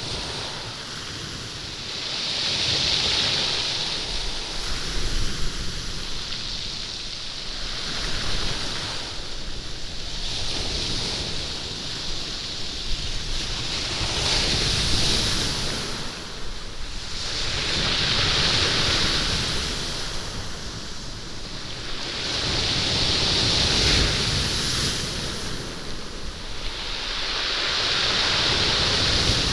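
Surf breaking and washing over a stone beach, each wave rushing in and drawing back and rolling the beach stones so they rumble and clatter. Six swells of wash come and go, one every four to six seconds.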